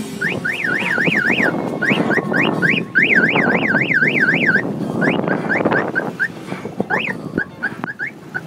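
Siren sounding in a fast rising-and-falling yelp, broken off into single short upward whoops at uneven spacing, over dense rumbling car noise.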